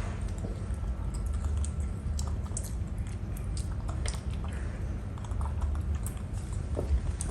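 A monkey chewing grapes: scattered small wet clicks and crunches over a steady low rumble.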